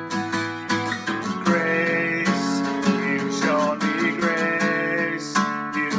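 A man singing a worship song while strumming an acoustic guitar.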